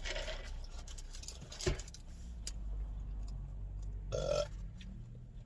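A woman burping once, briefly, a little after four seconds in, with a single sharp tap or click earlier.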